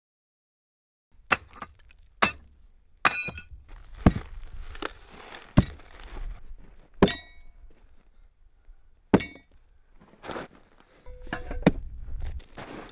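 Track workers' hand tools on a cog railway's steel rack rail and wooden ties: sharp metal clanks and hammer strikes, several ringing, with shovel scraping through gravel between them, starting about a second in.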